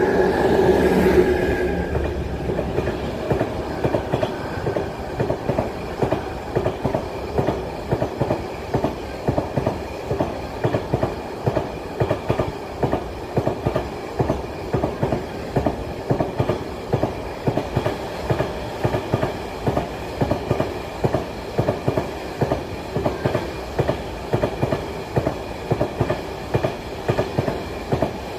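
M62 diesel locomotive's two-stroke engine passing close by in the first couple of seconds, then a long train of container flat wagons rolling past with a steady, regular clickety-clack of wheels over the rail joints.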